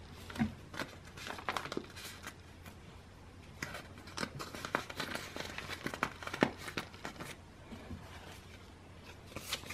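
Plastic binder sleeve pages crinkling and rustling as photocards are worked into tight-fitting pockets: a scatter of light crackles and taps.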